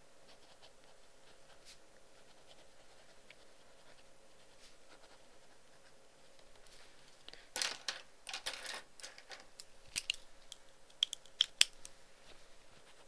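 Paper being handled at a desk over a faint steady hum: a burst of rustling a little past halfway, then a few sharp clicks near the end.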